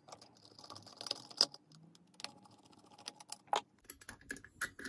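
Small, irregular metallic clicks and taps from the screws and throttle cable bracket being worked loose from a Keihin CV carburetor with a screwdriver and fingers.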